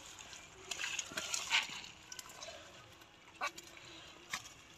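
Wet cast net being handled by hand, with scattered short rustles and a few sharp knocks as a fish is picked out of the mesh; the loudest come about a second and a half in and twice more near the end.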